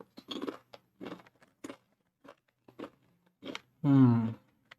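Someone chewing crunchy corn nacho chips with their mouth close to the microphone: irregular crunching bites. Near the end comes a short voiced hum, the loudest sound.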